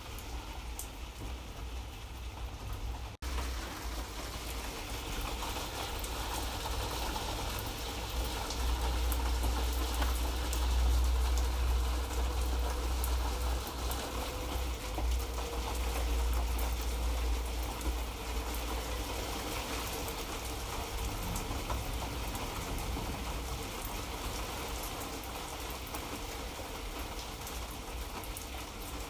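Light rain falling steadily: a soft even hiss with many small drop ticks over a low rumble that swells in the middle. The sound cuts out for an instant about three seconds in.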